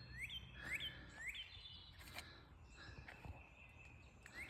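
Outdoor birdsong: a songbird repeats a short rising chirp about twice a second for the first second and a half, with other birds calling faintly throughout. A soft click sounds about two seconds in.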